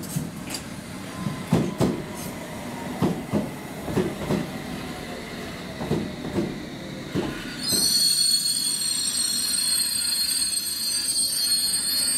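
London Underground S Stock train pulling into the platform and slowing. Its wheels knock irregularly over the rail joints, with a falling whine. About two-thirds of the way in, a loud high-pitched squeal starts and holds as the train brakes to a stop.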